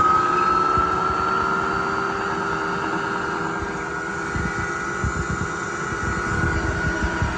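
KBC milling machine running: a steady motor whine with overtones that climbs a little in pitch over the first second or so and then holds, over irregular low thumps.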